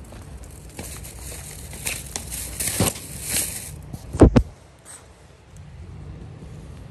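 A brown tabby cat rubbing against the camera: rustling of fur brushing over the microphone, then two sharp knocks in quick succession about four seconds in.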